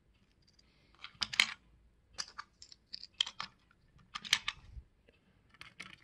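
Small sharp plastic clicks and taps in several quick clusters as the power-switch and LED boards of an opened FrSky Taranis QX7S transmitter are handled and fitted back into its plastic case.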